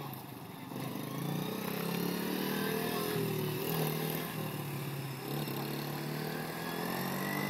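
Small youth ATV engine running under throttle as the quad is ridden, its pitch rising and falling with the revs and getting louder from about a second in.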